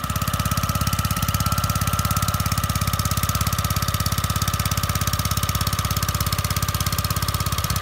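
Small petrol engine driving a long-shaft propeller pump, picking up speed right at the start and then running steadily at high speed with a fast even beat, pumping water out of a muddy ditch.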